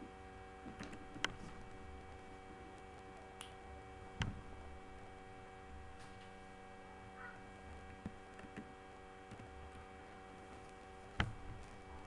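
Scattered computer mouse clicks, three of them sharp and several faint, over a steady electrical hum.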